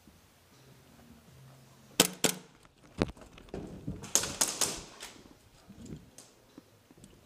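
Airsoft gunfire: two sharp cracks about two seconds in, another a second later, then a quick string of about five cracks near the four-second mark.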